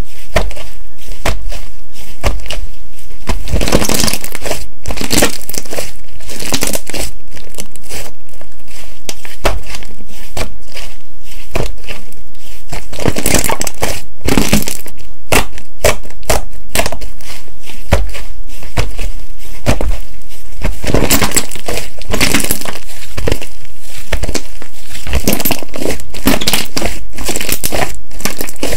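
'Cotton bread' (목화빵) slime squeezed and worked by hand, making a dense run of crackling and popping clicks, with louder, thicker spells of crunching several times along the way.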